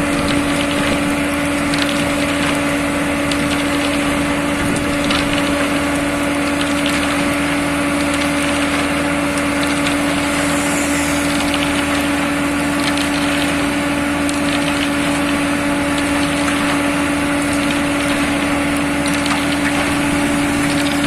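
SLM 4000 self-loading concrete mixer running steadily: a constant machine drone with a strong, unchanging hum, and scattered clicks and rattles over it.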